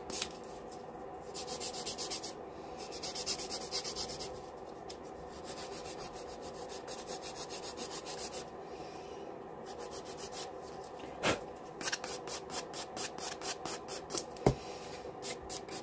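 Hand nail buffer rubbed quickly back and forth over acrylic nails to smooth them, in runs of fast scraping strokes with short pauses between runs. Two light knocks come in the second half.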